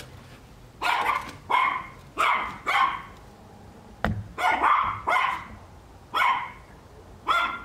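A dog barking repeatedly, about nine short barks in quick runs with brief pauses between them. A single sharp click about four seconds in.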